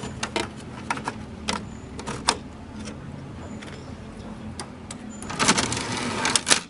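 Scattered sharp clicks and knocks as license plates are fitted into a powered license plate flipper mechanism, followed near the end by about a second of louder, denser mechanical clatter.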